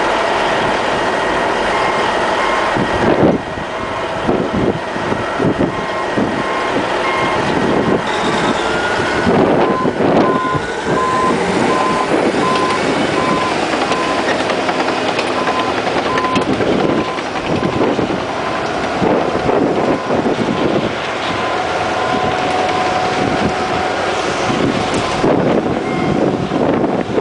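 Caterpillar D8N crawler dozer's diesel engine running under load, with its tracks clanking and knocking over broken rock. The backup alarm beeps steadily through the first several seconds and again for a stretch in the middle.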